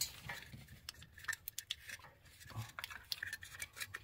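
Light, irregular metallic clicks and clinks of hydraulic lifters and their lifter tray being handled during removal from a GM 5.3-litre V8.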